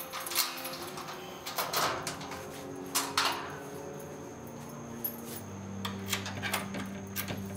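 Keys rattling and the lock and lever handle of a steel security grille door clicking as it is unlocked and opened, a string of sharp metallic clicks, the loudest about two and three seconds in. A low steady hum comes in about two thirds of the way through.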